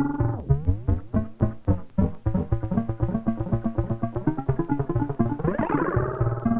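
Behringer Neutron analog synthesizer playing a fast sequence of short, plucky notes over a low bass line. The tone darkens early on, and about five and a half seconds in it sweeps up bright again.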